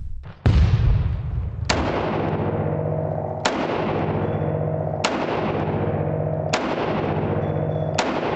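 Edited intro sound effect of heavy gunshot-like booms, six of them about one and a half seconds apart, each leaving a long, steady ring that lasts until the next.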